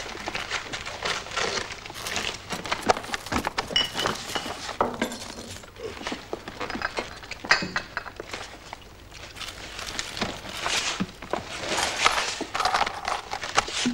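Men eating in a ward: chewing and biting into food, paper wrappings rustling and crackling, with glass and dishes clinking now and then in short, irregular clicks.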